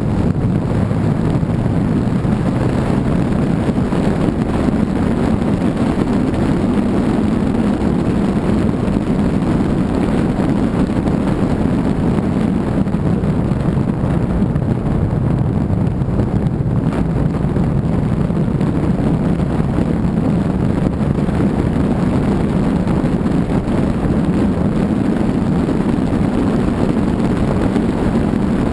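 Car driving along at steady speed: a continuous low rumble of engine, tyre and road noise mixed with wind on the microphone.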